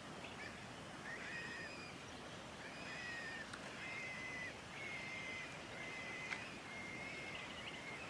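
Crested bellbird nestlings begging: a run of thin, level whistled notes, each about half a second long, repeated roughly once a second as the adult comes to the nest. A sharp tick sounds about six seconds in.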